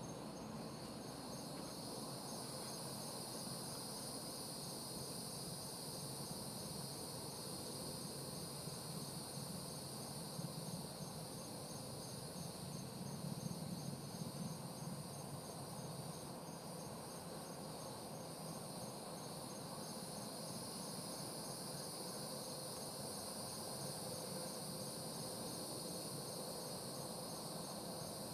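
Night insect chorus: crickets trilling steadily at several high pitches, one a fast, even pulse. A faint low rumble swells briefly about halfway through.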